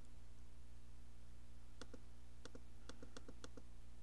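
Computer mouse scroll wheel clicking in short quick runs of notches as a page is scrolled, the last and longest run about three seconds in, over a faint steady low hum.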